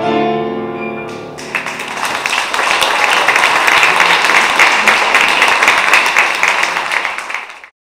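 Music ends about a second and a half in, followed by an audience applauding loudly with dense clapping, which cuts off abruptly near the end.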